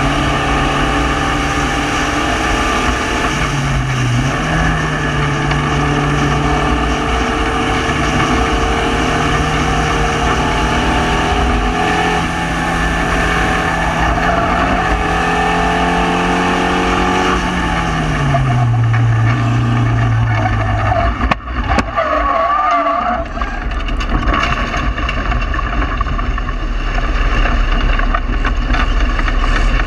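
Spec Racer Ford's four-cylinder engine running hard in an open cockpit, with wind noise. Its pitch dips briefly early on and falls away about two-thirds through, then the tyres squeal briefly as the car slides off the track into the grass, where the engine keeps running over the rumble of the rough ground.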